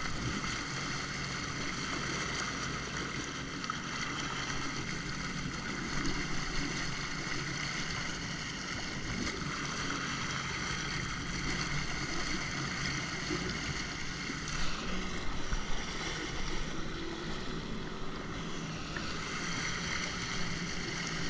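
Jet ski engine running steadily under throttle while under way, with wind noise on the microphone.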